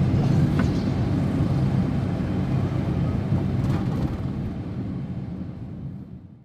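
Steady engine and road noise heard from inside the cabin of a moving Daihatsu Ayla, fading out gradually over the last two seconds.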